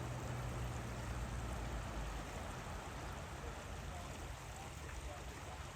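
Steady rush of flowing floodwater at a ford, with a low vehicle engine hum that fades away about two seconds in.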